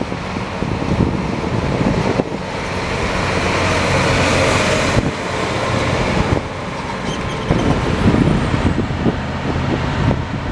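Tandem-axle dump trucks' diesel engines running as they drive past on the road, with tyre and engine noise swelling to a peak as one goes by close about four seconds in.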